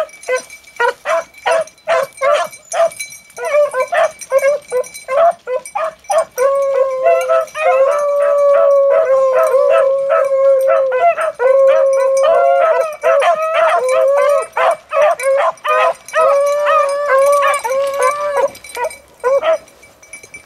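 A pack of beagles baying while trailing a rabbit: short, choppy barks at first, then from about six seconds in several dogs hold long, drawn-out bawls together, breaking back into short barks near the end.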